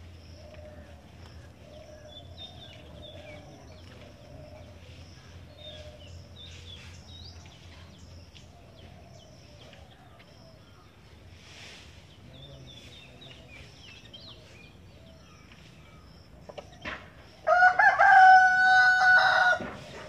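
Faint twittering of small birds, then near the end a rooster crowing loudly once, for about two seconds.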